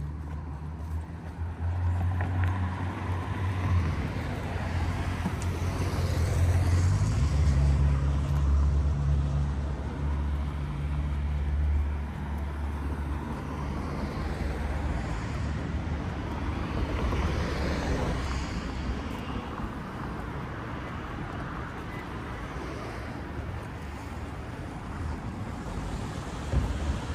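Road traffic: motor vehicles passing on the street alongside, a low rumble that builds over the first few seconds, is loudest for several seconds, then eases to a steady traffic hum.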